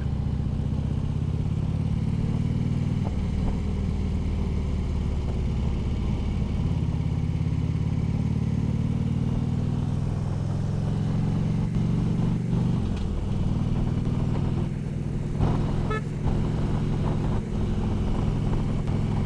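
Harley-Davidson FLHTK Ultra Limited V-twin engine running steadily at road speed, heard from the rider's helmet headset. Its note shifts briefly a little past halfway. A short pitched blip about three-quarters of the way through fits a quick tap of the horn.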